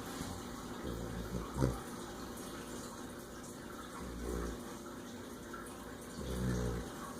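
Snoring: three low snores about every two and a half seconds, over a steady background hiss.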